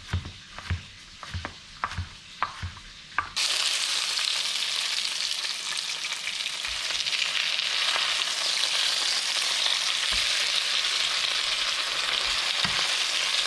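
Knife chopping a shallot on a cutting board, about three quick strokes a second. A little over three seconds in, this cuts abruptly to steady, loud sizzling of flour-dredged red grouper frying in a pan.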